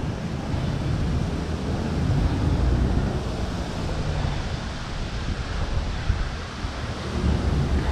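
Wind buffeting the microphone of a chest-mounted camera on a moving electric wheelchair: a steady low rumble, with the chair's drive and tyres on the tarmac path mixed in.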